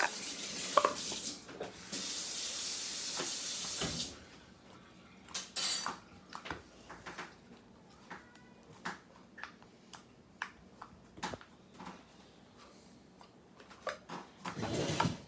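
Slime being poked and handled close to the microphone: a steady hiss for about four seconds, then scattered small clicks and squelches.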